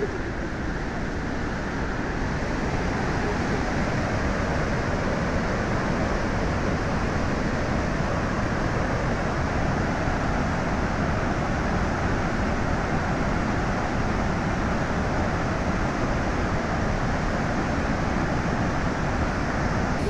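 Steady rushing of the Salto de Eyipantla waterfall, a heavy flow of water plunging over the cliff into the pool below. It grows slightly louder about two seconds in, then holds even.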